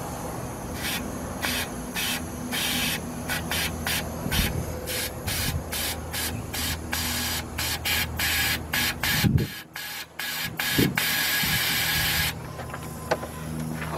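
Compressed-air blow gun fired in a rapid series of short hissing bursts, then one longer blast about eleven seconds in. It is blowing out the heater and AC housing drain of a 2003 Honda Pilot, which is clogged with leaves and dirt so that water collects and sloshes in the dash.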